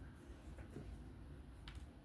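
Faint handling noise as the parts of a disassembled folding knife are wiped clean, with one light click about three-quarters of the way through.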